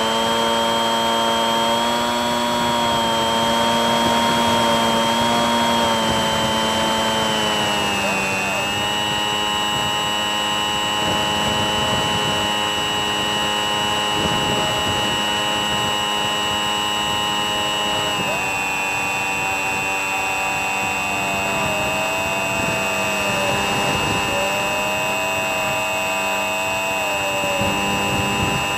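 Bixler 3's electric motor and pusher propeller whining steadily in flight, heard from on board over a steady rush of air. The pitch steps down twice, about eight and eighteen seconds in, as the motor slows.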